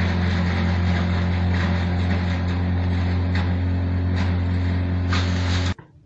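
Homemade corn grinder driven by a three-phase induction motor, running with a steady deep hum under a noisy grinding rush and a few sharp clicks. It cuts off suddenly near the end.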